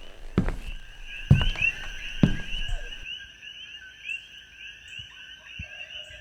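A night chorus of small chirping calls, repeating many times a second, over a faint steady high tone. Three dull thumps sound in the first two and a half seconds.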